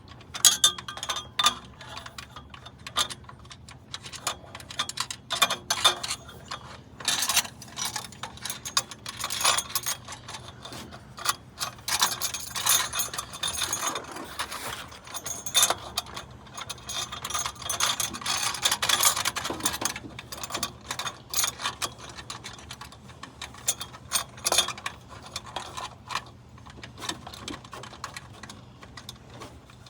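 Hand ratchet wrench clicking in quick bursts as bolts are turned on the catalytic converter exhaust joints, with pauses between runs.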